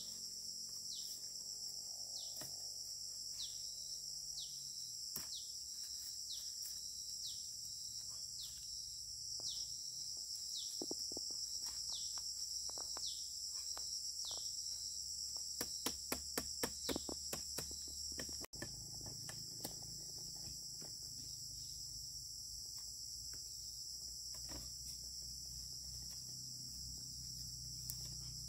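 Steady high-pitched chorus of insects chirring, with a short falling chirp repeating about once a second over the first half. A quick run of sharp knocks comes about halfway through.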